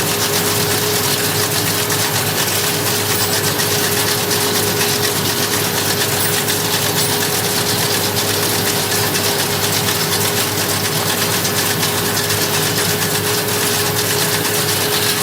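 Farm tractor engine running steadily while powering a round hay baler, with a constant whine over the machinery noise.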